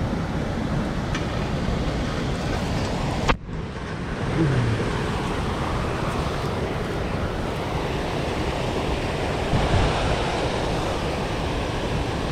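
Wind buffeting the microphone: a steady rushing noise with a low fluttering rumble, broken by one sharp click about three and a half seconds in.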